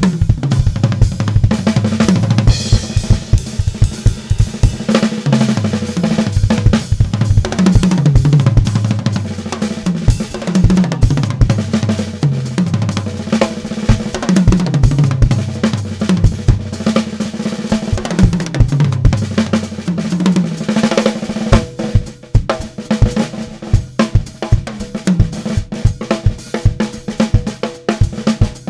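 Drum kit solo played melodically: tuned toms stepping up and down in pitch in quick runs, over bass drum, snare and hi-hat, with cymbal crashes.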